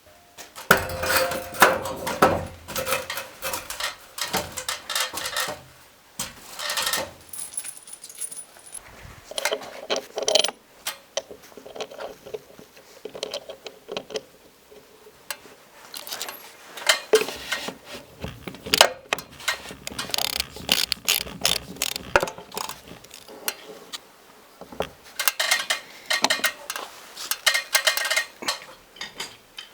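Metallic clinking and clattering of hard objects being handled and knocked together, in quick irregular runs with short pauses.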